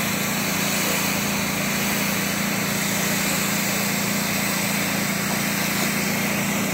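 Pressure washer running steadily: a small engine's constant hum under the hiss of the high-pressure water jet hitting a concrete sidewalk.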